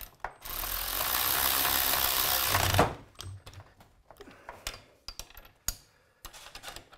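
A handheld cordless power driver runs steadily for about two and a half seconds, stopping about three seconds in, followed by scattered clicks and knocks of metal hardware being handled.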